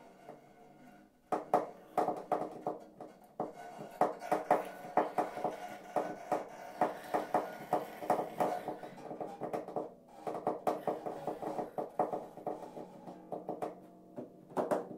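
Solo harp playing quick, repeated plucked notes, with short breaks about a second in and again near ten seconds.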